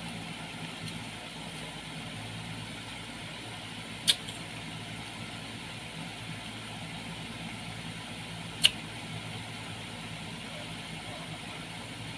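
Crisp crunching bites into raw guava: two loud, sharp crunches about four and eight and a half seconds in, over a steady low hum.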